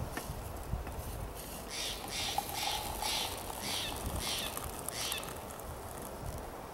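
Hot coffee being poured from a Coleman aluminum percolator into a ceramic mug, the stream splashing in uneven spurts about twice a second, starting about two seconds in and stopping a few seconds later.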